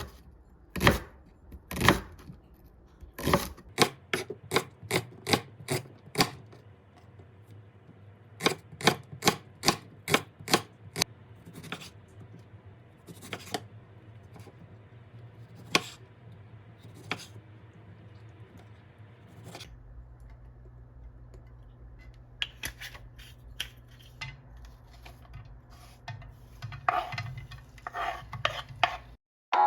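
Knife chopping on a cutting board: runs of sharp knocks, about two a second, with pauses between runs.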